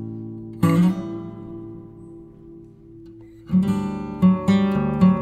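Background music on acoustic guitar: a strummed chord about two thirds of a second in rings and fades for nearly three seconds, then quicker strumming starts about three and a half seconds in.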